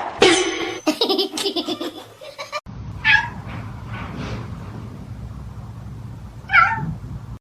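A person laughing, then a cat meowing twice, a few seconds apart, over a low steady hum.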